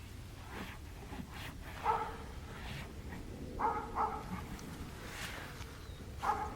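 A dog giving a few short, high yips: one about two seconds in, two close together near four seconds, and one more near the end, over faint clicks and clatter.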